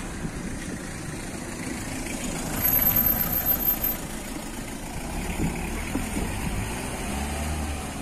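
Engine and tyres of a small panel van driving past close by, swelling to its loudest about three seconds in and then fading, over a steady low street rumble.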